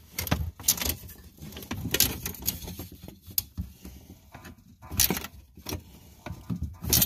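Irregular metallic clicks, light rattles and knocks from hands handling a homemade gas pedal assembly built from a metal two-hole punch. The sharpest knocks come about five seconds in and near the end.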